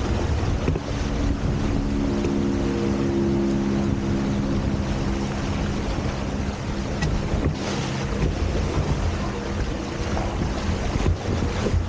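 Wind buffeting the camera microphone and water rushing past the hulls of a Hobie Tiger F18 catamaran under sail, with a steady low hum that is strongest in the first half.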